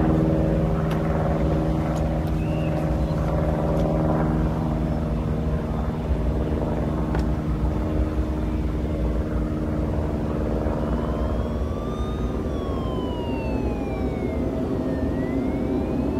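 A steady engine drone with a low rumble and held tones. About eleven seconds in, a siren starts wailing, rising and falling slowly in pitch.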